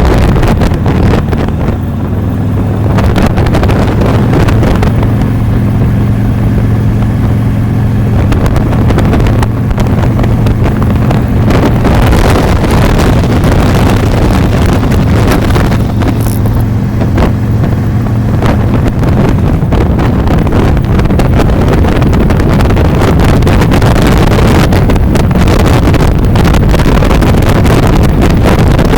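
Motorcycle riding along at a steady pace: a steady engine hum under heavy wind rush on the microphone, the wind at times covering the engine.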